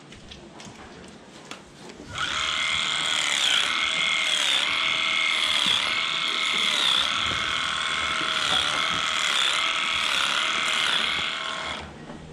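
Electric animal hair clippers switch on about two seconds in and run steadily while trimming the long hair of a cow's tail switch, with a slight dip in pitch now and then. They stop shortly before the end.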